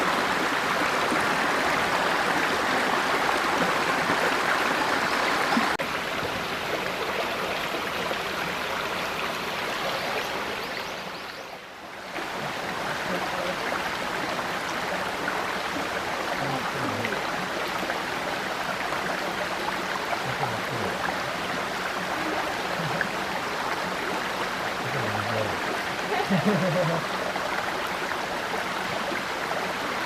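Mountain stream running over rocks: a louder, splashier rush for the first six seconds or so, then a softer steady flow, with a brief dip near the middle.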